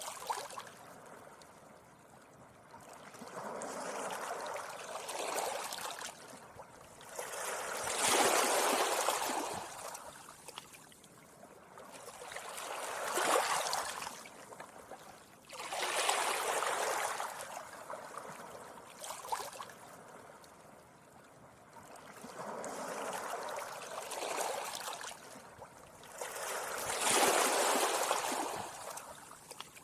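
Small sea waves washing gently up a beach, one after another: each swells to a hiss of foam and drains away, about six times, several seconds apart.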